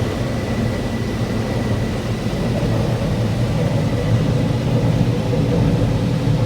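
Combine harvester running steadily while shelling corn: a dense, even machine hum, with a faint high whine that fades out about halfway through.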